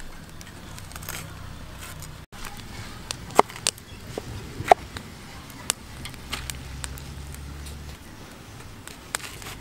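Large knife cutting through peeled jackfruit, its blade knocking against a wooden chopping block in a handful of sharp knocks spaced out over several seconds.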